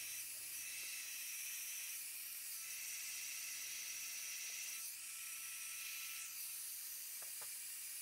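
Small handheld electric heat gun running steadily: a faint, even hiss of blown air with a light high whine, warming freshly poured, still-gooey epoxy resin so it flows down the sides.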